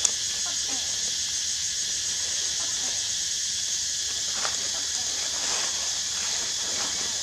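Steady high-pitched insect chorus, with a few faint ticks.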